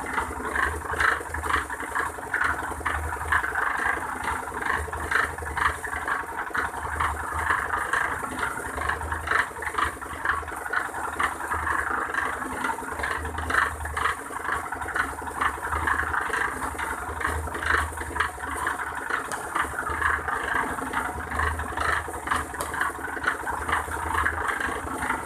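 A machine running with a continuous dense rattling and clatter over a pulsing low hum.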